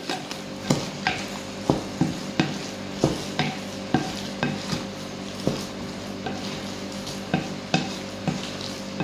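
Wooden spoon stirring a thick tuna-and-egg mixture in a glass bowl, knocking against the glass at uneven intervals, about one to two times a second.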